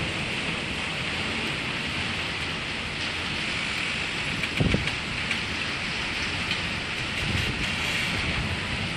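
Steady rain falling on a carport roof, with low rumbles of thunder underneath and one short low thump about four and a half seconds in.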